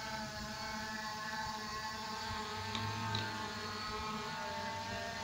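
Hubsan H501A quadcopter drone hovering in place: a steady whir of its propellers at an even pitch.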